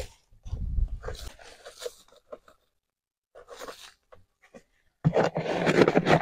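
A cup scooping wood ash from a plastic bucket and tipping it onto the ground at a banana plant's base: short bursts of scraping and rustling with brief gaps. The loudest burst comes about five seconds in, as the cup goes back into the bucket.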